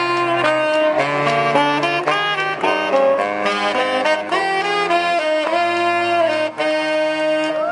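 Brass band of saxophones, trombones and a sousaphone playing a tune live through a PA, with held chords that change about once a second over a sousaphone bass line.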